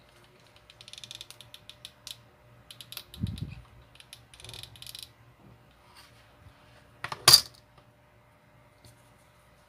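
Hot glue gun trigger squeezed in short runs of rapid ratcheting clicks as the glue stick is fed, three times, then a sharp knock, the loudest sound, about seven seconds in as the gun is set down on the table.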